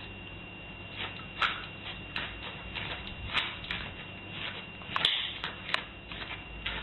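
Irregular light clicks and scuffs of a small terrier's paws and claws on a doormat and tiled floor, a dozen or so, a few louder ones about a second and a half in and around five seconds in. A faint steady high whine runs underneath.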